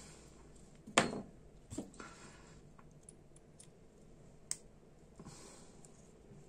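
A few small, sharp clicks and taps of metal hand tools (tweezers and a pin punch) against tiny lighter parts and the bench, the loudest about a second in and another single click about four and a half seconds in.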